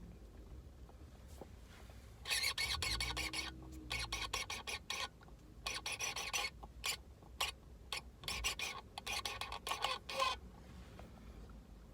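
Paper food packaging rustling and crinkling in repeated bursts as it is handled, for about eight seconds.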